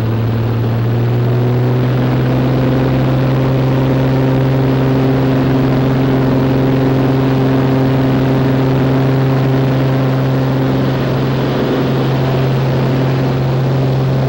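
Small propeller plane's engine running at full power for the takeoff roll and climb-out, a loud, steady drone heard from inside the cabin.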